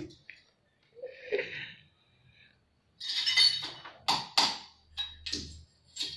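Glass beer bottles and broken bottle pieces clinking and knocking against each other and the floor as they are handled, with several sharp clinks in the second half.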